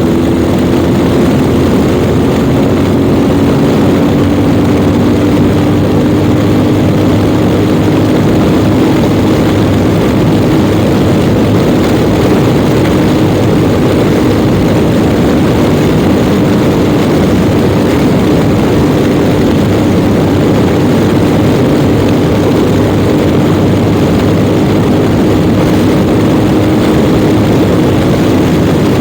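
Yamaha Ténéré 700 World Raid's parallel-twin engine running at a steady cruising speed on the open road, its note holding almost constant under heavy wind rush.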